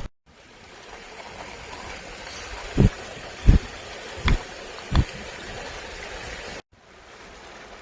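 Steady rushing of a stream, with four dull knocks about two-thirds of a second apart around the middle.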